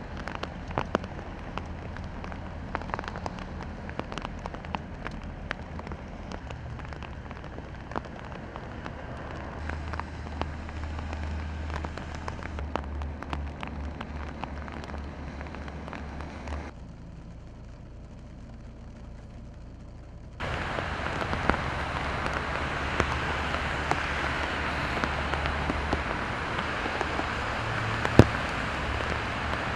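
Rain pouring down in a steady hiss, with many sharp drop ticks and a low rumble underneath. The sound changes abruptly twice about two-thirds through: a quieter stretch, then louder, denser rain.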